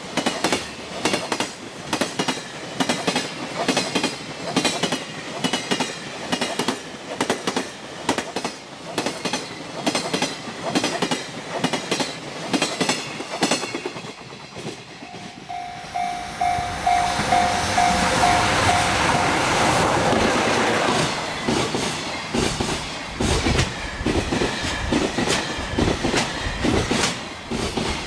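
Freight train wagons rolling past, their wheels clattering in a steady rhythm over the rail joints. About halfway through, a louder rushing sound swells for several seconds with a pulsing tone over it, then the joint clatter carries on.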